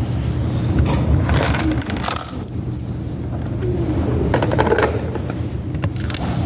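Light metallic clinks and jingling a few times, over a steady low rumble.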